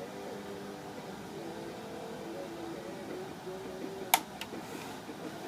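Quiet room with faint, held low tones that step in pitch in the background, and one sharp click about four seconds in.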